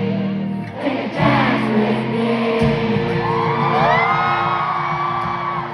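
Live pop concert music: the band holds sustained chords while the crowd sings along and lets out rising screams and whoops, picked up by a camcorder's built-in microphone.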